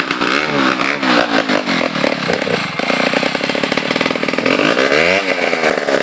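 Stihl 070 two-stroke chainsaw revving up and down several times, held at high speed for a stretch in the middle, then rising and falling again near the end.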